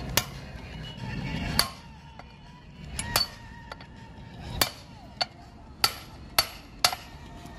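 Hammer blows on a steel drift, driving a universal-joint bearing cup into a truck propeller-shaft yoke: about nine sharp metallic strikes at uneven intervals, each with a short ring.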